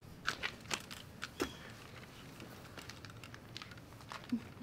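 Faint knocks and clicks of a person sitting down in a metal-framed folding lawn chair: several in the first second and a half, then one more about four seconds in.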